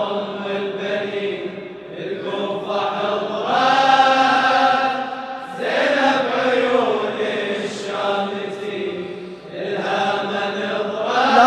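A congregation of mourners chanting the refrain of a Shia latmiyya (mourning elegy) together, in about four long drawn-out phrases.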